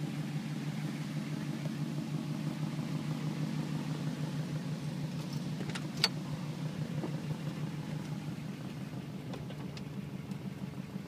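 1955 Ford Crown Victoria's engine idling steadily, with a single sharp click about six seconds in.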